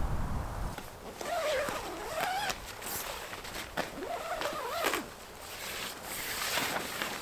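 Dog whining: two long wavering whines that rise and fall in pitch, each about a second and a half, the second starting about four seconds in.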